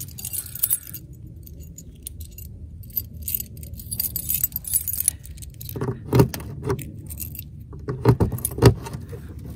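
A bunch of keys jangling on a key ring as a key is worked into the lock of a motorhome's exterior compartment door, with a few heavier knocks about six seconds in and again near the end.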